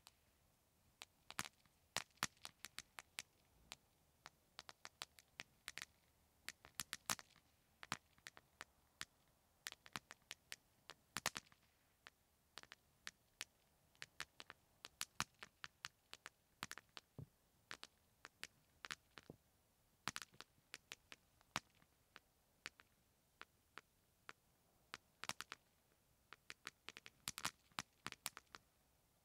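Candy Crackle fountain firework burning on the ground, giving off a stream of sharp, irregular crackling pops, several a second and often in quick clusters.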